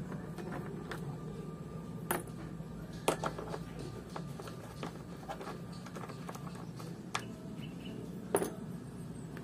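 Scattered small clicks and taps of a screwdriver and hard plastic as screws are taken out of a Yamaha Mio i 125 S scooter's front panel and the panel is handled. The sharpest click comes about eight seconds in, over a low steady hum.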